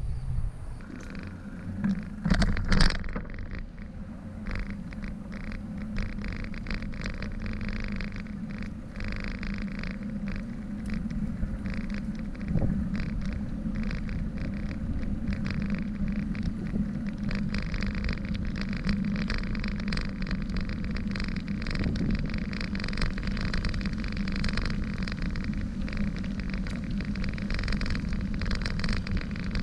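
Bicycle rolling along paved campus paths: a steady rough rumble with many fast rattling clicks, and a couple of louder knocks about two to three seconds in.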